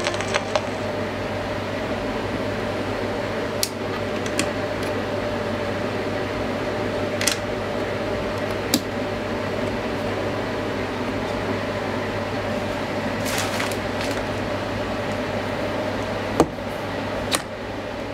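Turntable stylus riding a vinyl record after the music ends: a steady hiss with a low hum, broken by scattered sharp clicks.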